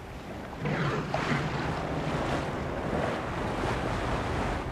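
Sea waves washing and wind buffeting the microphone on open water, swelling about half a second in, with a faint low hum of a boat's motor underneath.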